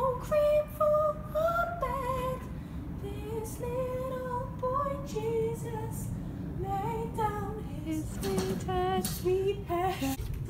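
A woman singing a slow tune in long held notes, the voice alone with no instruments, some notes wavering near the end.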